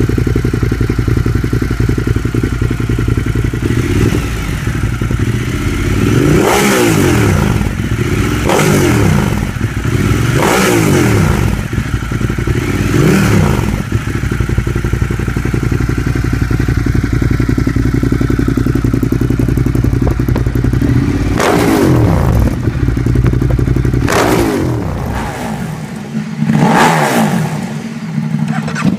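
Ducati Monster 1200's L-twin engine with Termignoni slip-on exhausts idling, blipped again and again so the revs rise and fall sharply, in two runs of four or five blips each. Just before the end it cuts to another motorcycle's engine.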